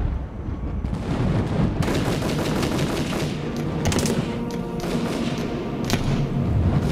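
Rapid, dense automatic rifle gunfire in a battle, starting about two seconds in, over a low film score.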